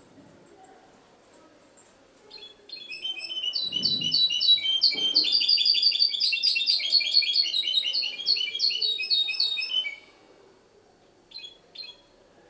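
Goldfinch × canary hybrid (mule) singing a rapid, twittering song of quick high notes for about seven seconds, starting a couple of seconds in. Two short notes follow near the end.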